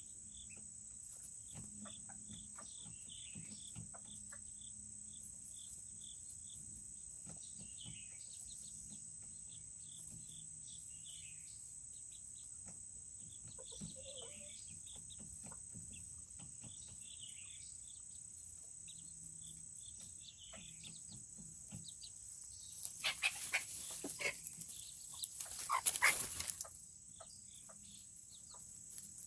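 Serama chickens peeping softly with many short, high, falling chirps. About 23 seconds in, a louder burst of rustling and scratching lasts a few seconds.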